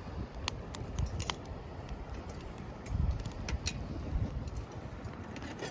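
Wind rumbling on the microphone, with scattered light clicks and crackles.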